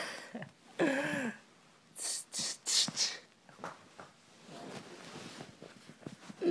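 A man's short gliding voiced sound, then four quick breathy bursts in a row from his nose and mouth, from someone who is sick with a cold.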